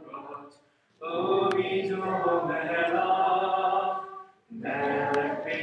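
A congregation singing a prayer together with a male prayer leader. About a second in a long phrase of held notes begins, breaks off briefly near the end, and the next phrase starts.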